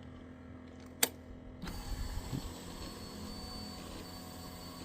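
A single click about a second in, then a faint steady electric whine with a thin high tone lasting a few seconds: a Kawasaki ZX-10R's fuel pump priming after the ignition is switched on, before starting.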